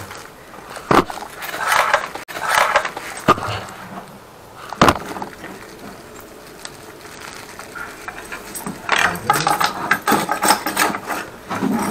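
Scattered knocks, clicks and scraping from drain-cleaning hoses and cable being handled on a tiled floor, with a sharp click about five seconds in and a busier run of scraping and clatter near the end.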